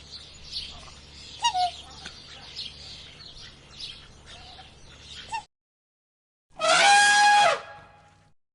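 Chickens clucking, with high chirps and peeps between the clucks. After a short silent gap, a single loud, pitched animal call lasts about a second.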